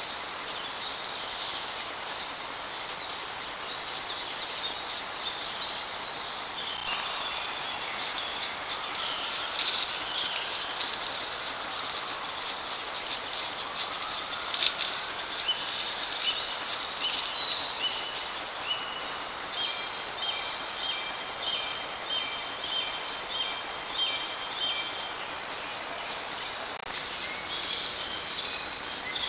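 Steady hiss of a trail camera's built-in microphone with outdoor woodland ambience; from several seconds in, high chirping calls repeat, settling into a regular run of short high notes about twice a second through the middle.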